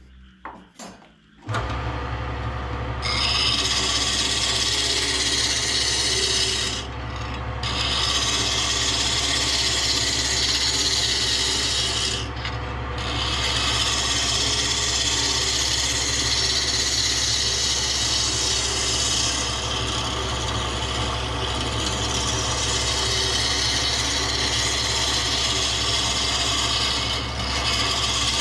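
An electric power tool switches on with a steady motor hum and then works wood with an even, loud abrasive hiss, such as sanding. The hiss breaks off briefly three times, as if the tool is lifted from the wood, while the motor keeps running.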